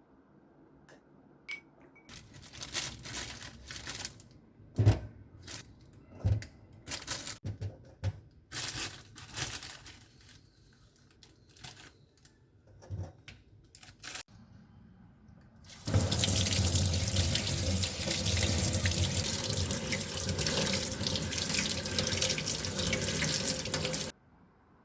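Kitchen sink: about 12 seconds of irregular splashing and handling, with a few sharp knocks. Then a faucet is turned on, runs steadily and loudly for about eight seconds, and is shut off abruptly near the end.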